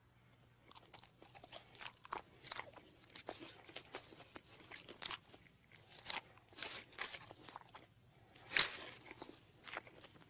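Irregular crisp crunching and crackling, a few sharp clicks a second, with a louder crunch about eight and a half seconds in.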